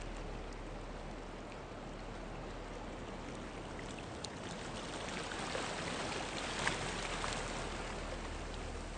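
Ocean surf washing onto a rocky sand beach, a steady rushing wash that swells a little past the middle.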